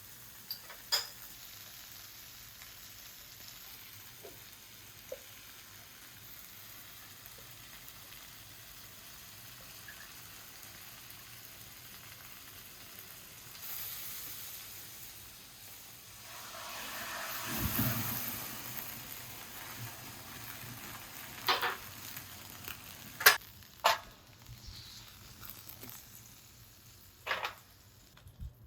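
Food sizzling as it fries in a pan, the hiss swelling louder for a few seconds past the middle, then a handful of sharp knocks near the end.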